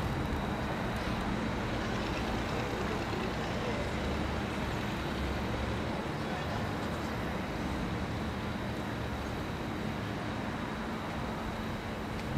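Steady outdoor street ambience: a low, even rumble like traffic, with faint indistinct voices and a thin steady whine in the background.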